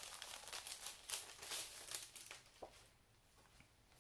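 Paper packaging crinkling and rustling as it is opened by hand, a quick run of rustles that dies away after about two and a half seconds.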